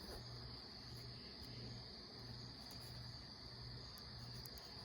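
Faint background noise: a steady high-pitched tone with a low hum pulsing on and off about every two-thirds of a second.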